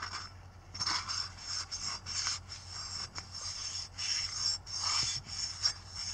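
Oiled blue shop towel rubbing around the inside of a KLX140 big bore motorcycle cylinder's bore in quick, irregular wiping strokes, scrubbing rust and dirt off the cylinder wall.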